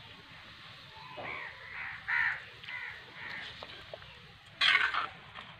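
A crow cawing, a run of about five caws in the first half, with a short loud clatter a little before the end.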